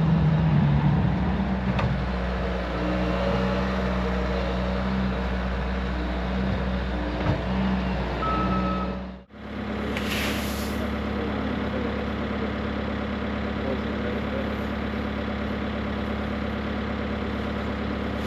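Bobcat loader's diesel engine running steadily. About nine seconds in, the sound cuts out for an instant and comes back as a different steady engine hum, with a short hiss soon after and another near the end.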